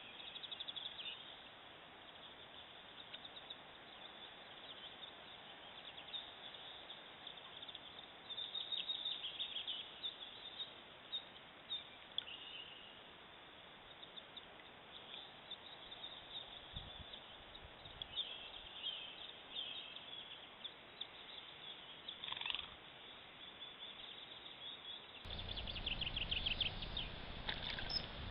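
Small birds chirping and trilling, thin and faint, as picked up by a trail camera's narrow-band microphone. About 25 seconds in the sound cuts abruptly to a louder steady hiss of running stream water with more chirping over it.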